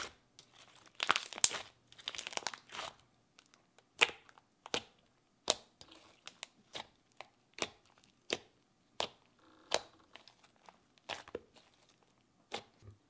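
Thick, stretchy slime being kneaded and pressed by fingers: a crackling squish for the first couple of seconds, then a string of sharp clicks and pops, roughly one or two a second, as the fingers push into it.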